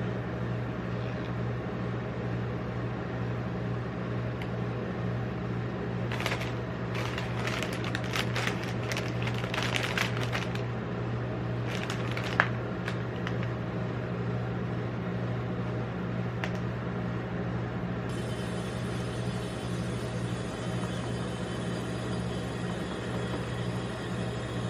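Steady hum from a rolled-ice-cream cold-plate freezer, with metal spatulas scraping and tapping on the frozen plate for several seconds in the middle, including one sharp tap.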